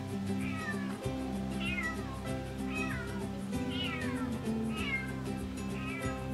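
Cat meowing repeatedly, about once a second, each meow a short call falling in pitch, over background music with steady low chords and a regular beat.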